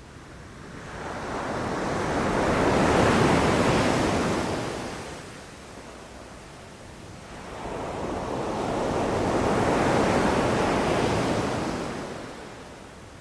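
Ocean surf washing onto a beach in two slow waves, each rushing in over a couple of seconds and then fading away.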